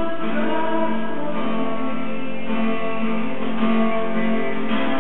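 Instrumental passage on guitar with no singing, held chords changing about once a second.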